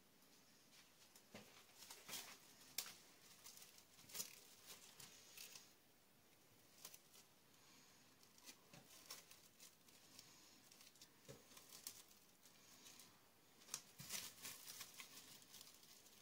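Faint crinkling and rustling of cling film being stretched over a dish, with scattered light clicks and taps in two spells, the second near the end.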